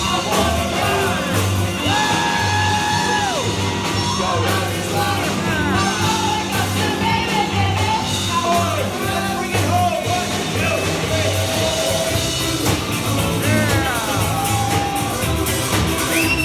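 Live rock band playing a song, with a vocalist singing and holding long notes over a repeating bass line and drums.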